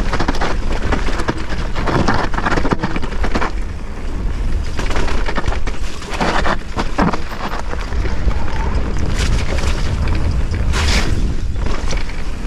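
Mountain bike descending a muddy dirt singletrack: a steady heavy wind rumble on the helmet-mounted camera, with the tyres rolling over dirt and roots and the bike rattling irregularly over bumps.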